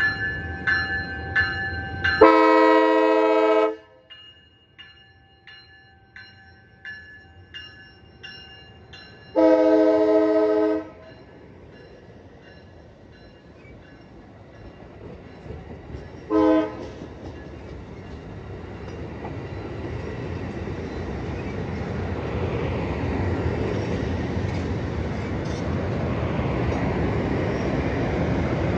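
Amtrak California passenger train moving through the station: its bell rings about twice a second, the horn sounds two blasts of about a second and a half, some seven seconds apart, and then a brief toot. A rumble of the passing train then builds steadily as the Siemens Charger diesel locomotive at the rear draws near.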